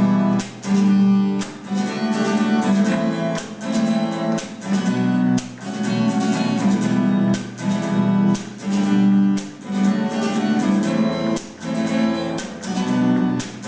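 Acoustic guitar strumming chords in a steady rhythm: an instrumental passage of the song, with no singing.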